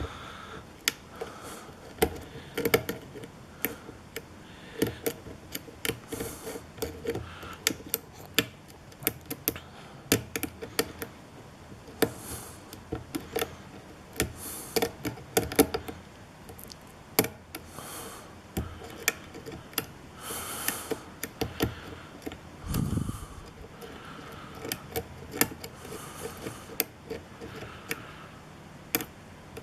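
Lock pick and tension wrench working the pins of a TESA Assa Abloy lock cylinder, with irregular light metallic clicks and scrapes as the pins are probed one at a time.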